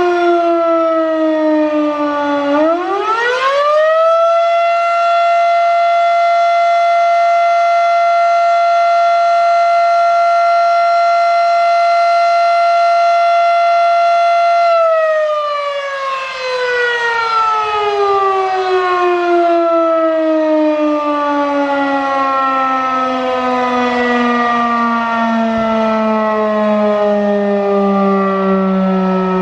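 Federal Signal Model 5 outdoor warning siren sounding its attack signal, pretty loud. Its pitch falls, climbs sharply about two seconds in, and holds one steady tone for about twelve seconds. It then winds slowly down.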